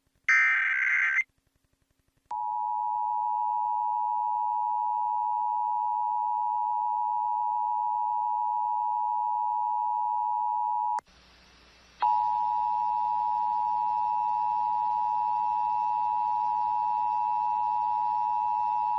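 An Emergency Alert System broadcast: a one-second warbling SAME data header burst, then about two seconds in the EAS attention signal starts, a steady two-tone pair (853 and 960 Hz). The tone breaks off about 11 seconds in, leaving a second of hiss, then resumes over a faint hiss.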